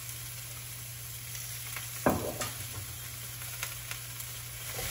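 Sliced zucchini sizzling steadily in olive oil in a pan on the stovetop. About two seconds in there is a sharp knock, likely a utensil against the pan, followed by a few faint clicks.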